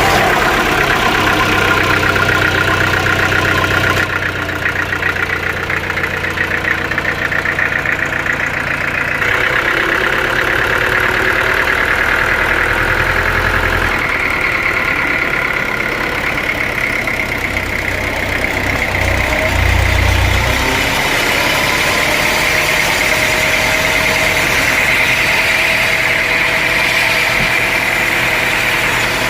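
Sawmill machinery with an engine running steadily, its sound shifting abruptly every few seconds.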